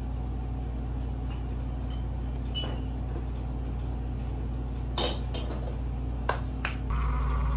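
Light clinks of a cup and small items being handled at a coffee station, over a steady low appliance hum. Near the end a louder whirring starts up.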